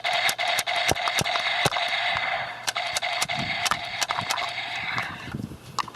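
Battery-powered toy blaster firing on full auto: a steady motor whine with irregular sharp clicks, cutting off about five seconds in.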